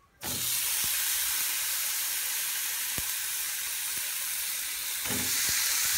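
Thin slices of marinated meat sizzling loudly on a dry, very hot ridged grill pan, cooked without fat. The hiss starts suddenly as the first slices go on and swells again near the end as more meat is laid down, with a couple of faint knocks.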